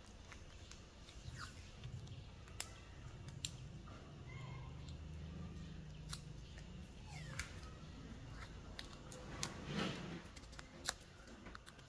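Pliers and a roll of black electrical tape being handled as the tape is wrapped around the plier jaws: scattered light clicks and taps, with a louder rasp of tape pulled off the roll about ten seconds in.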